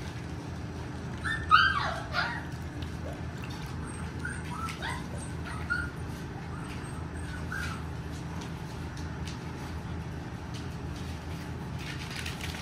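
Saluki puppies yelping and whimpering in play. A loud yelp about a second and a half in falls in pitch, then come several short, higher yips a few seconds later, over a steady low hum.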